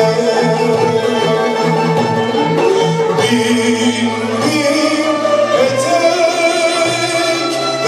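A male solo voice singing a Turkish classical (art music) song with an instrumental ensemble that includes violins. The voice's melody wavers and bends in the second half, over a repeating low figure in the first few seconds.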